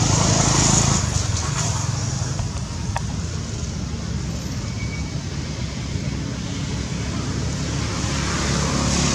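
Steady low rumble of road traffic, swelling near the start and again near the end as vehicles pass.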